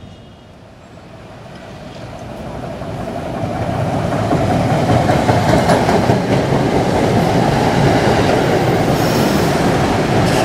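Metro-North commuter train coming into the station and running past along the platform: the rumble of its wheels on the rails grows louder over the first few seconds, then holds steady with rail clatter and a faint high wheel squeal near the end.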